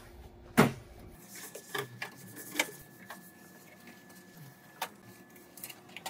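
Plastic knocks and taps from a Ricoh multifunction copier being handled while it is wiped down. There is one sharper clunk about half a second in, then a few lighter taps.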